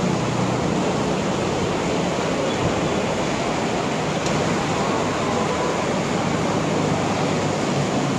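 Steady hiss of heavy rain falling on an open, wet road.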